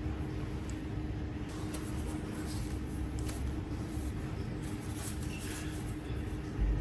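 Steady low room hum with a faint constant tone, and light scattered ticks and rustles of items being handled on a desk.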